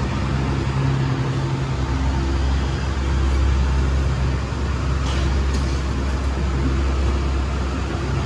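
Engine of a moving vehicle running steadily, heard from inside the cabin as a low, even hum with road and cabin noise. A couple of faint clicks come about five seconds in.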